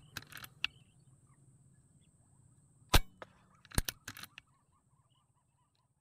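A PCP air rifle firing a single shot, a sharp crack about three seconds in, followed within a second by a few quieter clicks.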